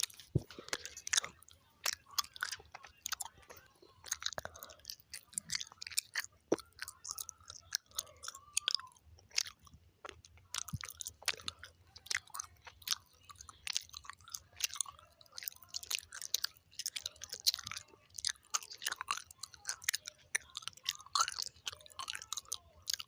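Close-up mouth sounds of chewing gum: wet smacks, clicks and squelches of the gum between teeth and tongue, coming irregularly several times a second.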